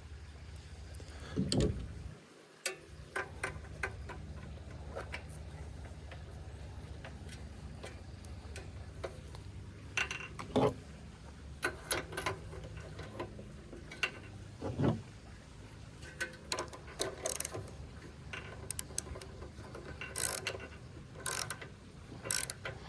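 Ratchet wrench with a spark plug socket clicking in short, irregular runs while a new spark plug is threaded in and snugged down on a Honda pressure-washer engine.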